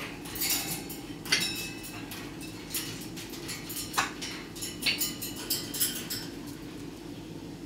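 A parrot making an irregular run of sharp clicks and clinks, a few with a short ringing tone, over a steady low hum.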